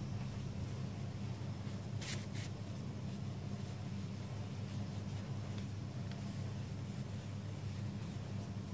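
Chisel-tip cut marker stroking across paper while writing calligraphy, with two short, sharper scrapes about two seconds in, over a steady low hum.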